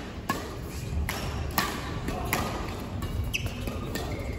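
Badminton rackets striking a shuttlecock in a fast doubles rally: about five sharp hits, half a second to a second apart.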